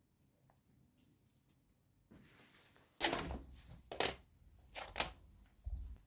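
Close handling noises: a soft rustle, then three loud rough strokes about a second apart, the first coming suddenly about halfway through.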